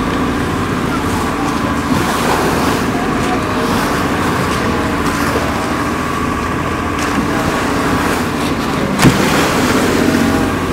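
Engine of a motorized outrigger boat running steadily, with water rushing along the hull and outriggers. A single sharp knock about nine seconds in.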